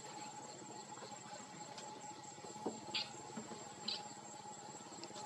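Steady chorus of crickets and other insects: a thin high trill held over a lower, steady buzz. Two short high chirps stand out, about three and four seconds in.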